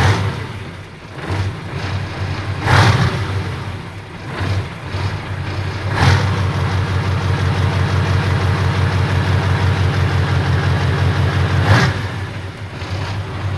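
V8 diesel truck engine running with its turbocharger removed, giving a different, louder engine note. It is blipped a couple of times, then held at higher revs from about six seconds in, and drops back near the end.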